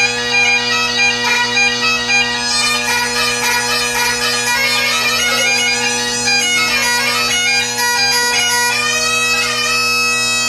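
Great Highland bagpipe played solo. The drones hold a steady bass under the chanter's ornamented melody, which settles on a long held note near the end of the final phrase of the tune.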